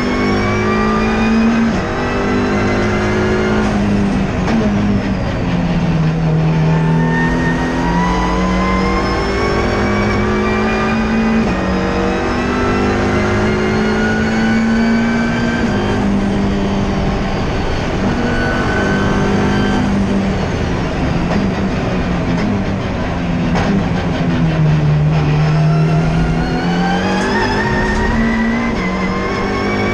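Race car engine heard from inside the cockpit, driven hard on track. Its pitch climbs steadily and then drops back at each gear change, about half a dozen times. It dips lower twice, about six seconds in and again near twenty-five seconds, when the car slows for corners.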